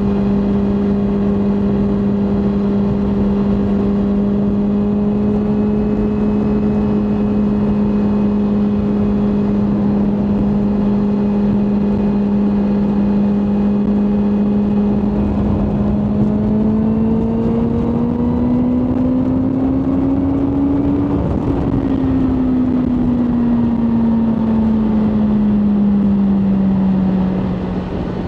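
BMW M1000R Competition's inline-four engine running at steady cruising revs. About two-thirds of the way through its note climbs as it accelerates, then falls back as it eases off.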